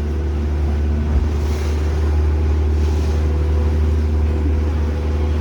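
Small tour boat's motor running steadily underway, a constant low drone, with wind and water noise over it.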